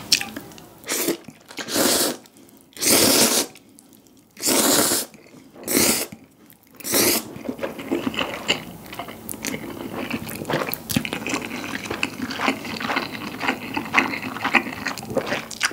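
A person slurping instant stir-fried noodles, about six loud sucking slurps in the first half, then chewing the mouthful with many small wet clicks and smacks.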